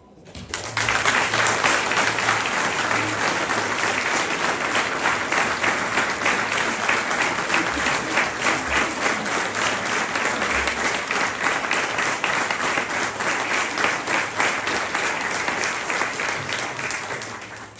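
Audience applauding: many hands clapping together in a dense, steady patter. It starts about half a second in and fades out near the end.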